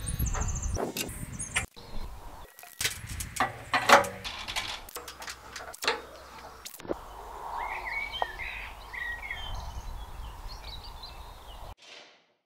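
Metal clicks and clinks from an adjustable spanner and then an Allen key tightening the bolts and grub screw of a galvanised steel tube clamp fitting. In the second half, birds chirp in the background.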